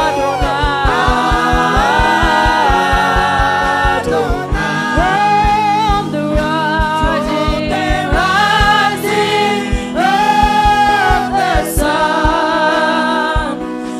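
Gospel worship song: several voices singing held, sliding melody lines over a band with a steady drum beat.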